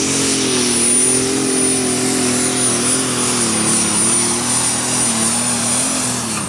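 Super Stock pulling tractor's turbocharged diesel engine at full power while pulling the sled, with a steady high turbo whine over the engine note. The engine pitch slowly sags as the tractor labours against a very heavy sled setting, then starts to fall away right at the end.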